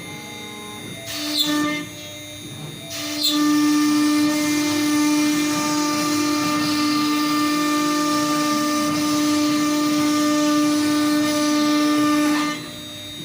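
CNC router spindle whining at a constant pitch as the bit cuts wood: a brief cut about a second and a half in, then a long steady cut from about three seconds in until near the end, with the spindle quieter in between.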